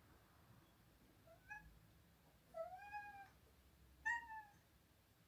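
Domestic cat meowing three times: a short faint mew, then a longer meow that rises and falls, then a short one.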